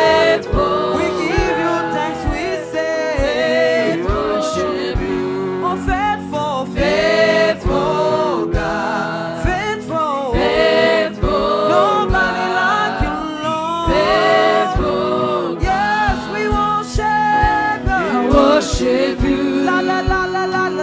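Gospel worship song: a choir and congregation singing together over instrumental backing with a steady, even beat.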